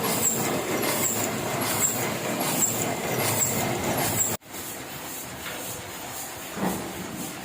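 Heidelberg offset printing press running, a dense mechanical clatter with a regular high tick a little more than once a second. About four seconds in it cuts off abruptly to quieter machine running with a faster, fainter rhythm.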